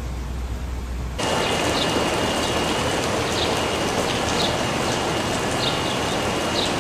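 Rain falling as a steady hiss that cuts in suddenly about a second in, replacing a low rumble. Short high chirps sound now and then above the rain.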